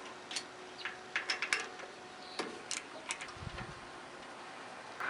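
Light, irregular metallic clicks and taps of a hand tool working on the carburetor's mounting studs on a small mower engine.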